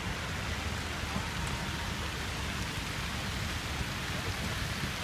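Steady rushing and splashing of plaza fountain jets falling into a pool, over a low rumble.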